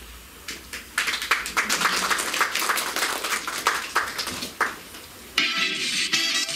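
Audience applauding for about four seconds, fading out; then music starts suddenly near the end.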